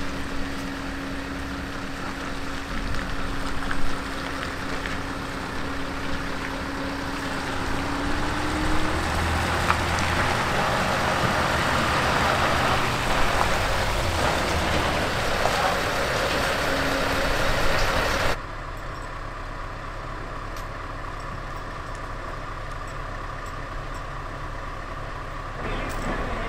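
Heavy Scania trucks' diesel engines running, with a steady whine that rises in pitch about eight seconds in over dense engine noise. About eighteen seconds in, the sound drops abruptly to a quieter steady engine hum.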